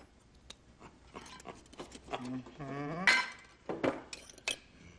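Light clinks and taps of a table knife against a glass jar and plate as the last of the mayonnaise is scraped out and spread. A short vocal sound from a person comes about two seconds in.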